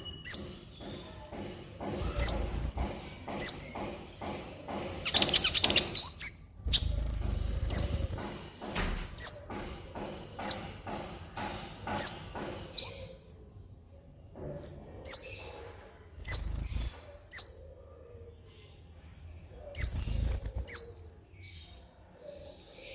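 Kolibri ninja sunbird calling: a series of sharp, high, short chirps, roughly one a second with a couple of short pauses, and a quick high trill about five seconds in.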